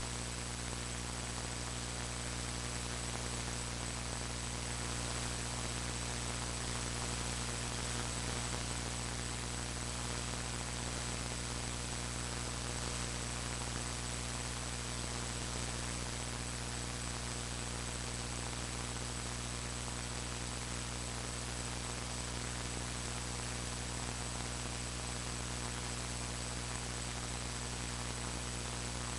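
Steady electrical mains hum under a constant hiss of static with a thin high-pitched whine, unchanging throughout: noise from a faulty recording setup rather than any sound on screen.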